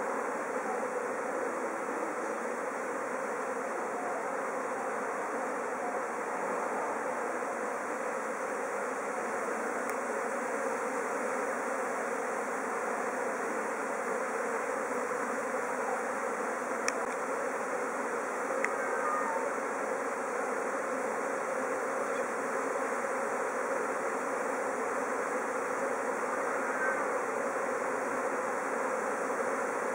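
Steady, dense buzzing hum of a swarm of Japanese honeybees in the air as the swarm gathers to a hive box that the queen has entered.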